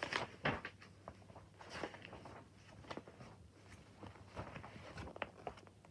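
Paper pages of a colouring book being handled and turned: irregular rustles and light knocks, with the loudest just after the start and a scattering through to the end.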